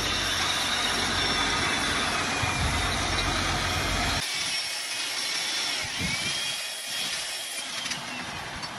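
Steady, loud power-tool noise on steel. About four seconds in it cuts to a quieter electric drill whining and changing pitch as it bores through a steel truck chassis rail.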